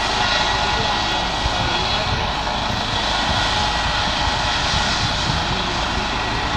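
Helicopter running on its pad before takeoff: a steady high turbine whine over the continuous rush of the engines and turning rotor.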